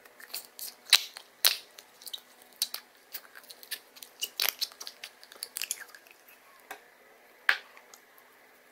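Sticky slime being pulled from a plastic cup and squeezed by hand, giving a run of irregular sharp pops and clicks as it sticks and pulls free. The loudest snaps come about a second in and again near the end.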